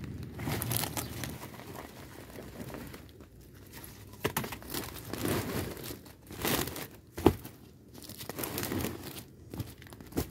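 Woven plastic sack crinkling and rustling in irregular bursts as langsat fruit is tipped into it and the sack is handled, with one sharper knock about seven seconds in.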